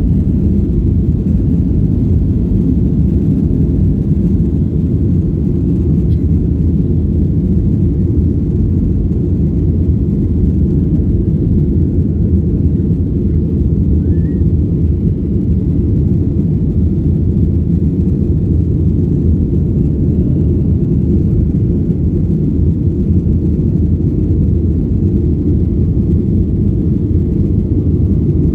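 Steady low rumble of a Boeing 737-800's CFM56 jet engines and airflow, heard from inside the passenger cabin.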